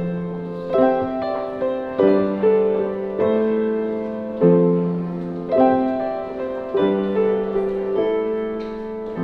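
Grand piano being played in a slow chord progression: a new chord is struck about every second and rings on, fading until the next.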